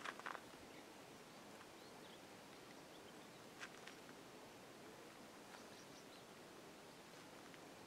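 Near silence: a faint outdoor background with a few brief chirps, the loudest cluster right at the start and a pair about three and a half seconds in.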